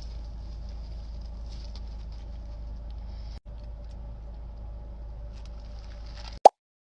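Steady low background hum with faint scattered crackling, which drops out briefly midway and ends in one sharp loud click, followed by dead silence.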